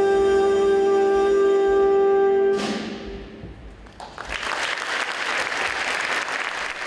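A band with brass holds a final chord that cuts off about two and a half seconds in and rings briefly in the hall. An audience then starts applauding about a second later and keeps going.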